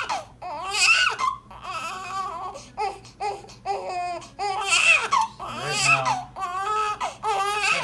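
Newborn baby, a few days old, crying in a run of high-pitched wails, about one a second, with short catches of breath between them.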